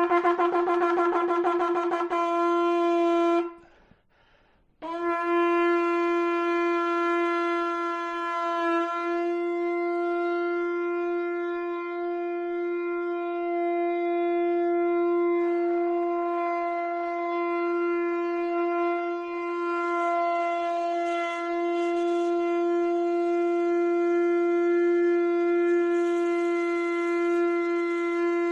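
Shofar (ram's-horn trumpet) blowing: a rapid quavering blast for about three and a half seconds, a short break, then one very long held note, a tekiah gedolah, steady in pitch for over twenty seconds.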